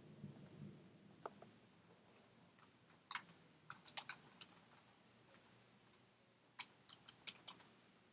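Near silence, with faint, irregular clicks scattered through it, some in quick little clusters, over quiet room tone.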